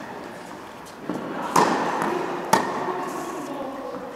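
Tennis ball being hit and bouncing during a rally: two sharp pops about a second apart, about a second and a half in, ringing briefly in the indoor hall.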